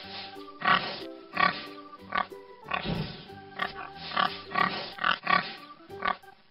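Recorded pig grunting over and over, a short call about every three-quarters of a second, over background music.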